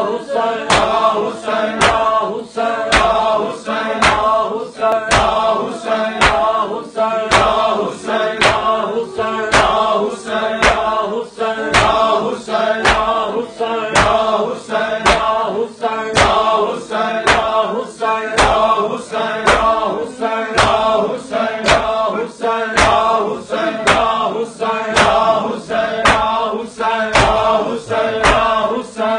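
A group of men chanting a mourning noha in unison while beating their chests with open hands in matam. The hand-on-chest slaps land together about twice a second.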